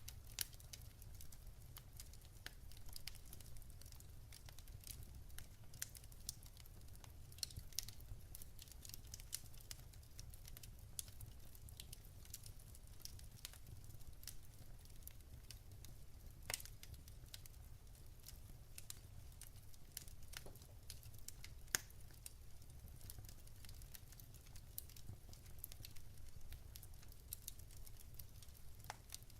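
Wood fire in a fireplace crackling: an irregular run of small pops and ticks over a faint low rumble, with a few sharper, louder pops past the middle.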